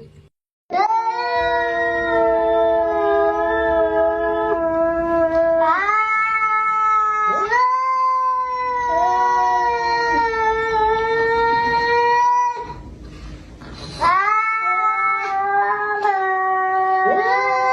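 A cat yowling in long, drawn-out calls, each swooping up in pitch as it begins, with a short pause about thirteen seconds in.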